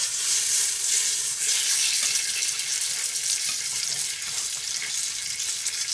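Salt pork frying in a stainless steel pan: a steady sizzle, a little louder in the first second or so.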